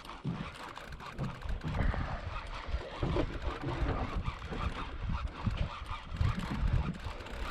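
Wind buffeting the microphone in irregular low thumps and rumbles, over a steady hiss.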